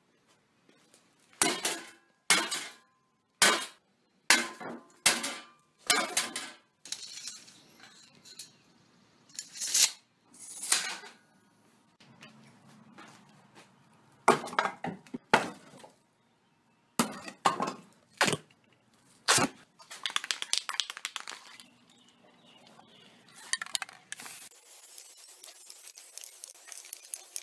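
Metal clanks and knocks from slotted steel angle strips and pieces of wood being handled and dropped: about a dozen separate sharp hits, several of them ringing briefly. Later comes a denser stretch of rattling and scraping.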